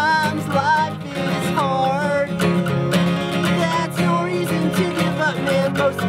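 A song on strummed acoustic guitar, with a voice singing a wavering melody over the chords.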